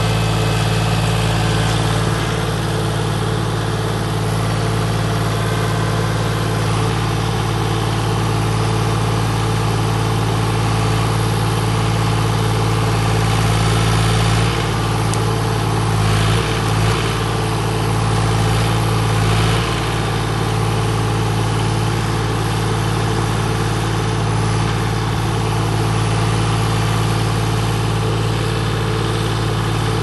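Mini skid steer's engine running steadily at a constant speed. A little past halfway its note shifts and wavers for a few seconds as the hydraulics take load while the log grab closes on and lifts a log.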